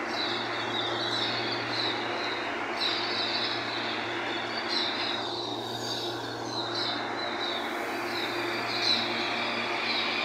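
Steady hum of a CAF Series 7500 electric commuter train standing at the platform, with birds chirping in short calls over it every second or two.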